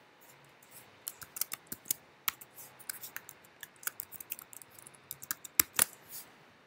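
Typing on a computer keyboard: quick, irregular key clicks begin about a second in, entering a password, with two louder key strikes near the end.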